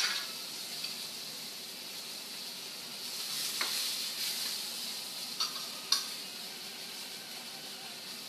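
Chicken breasts sizzling in a lemon-wine sauce in a metal frying pan on a gas burner. Sharp clicks of a metal utensil against the pan sound at the start, about three and a half seconds in, and twice around six seconds.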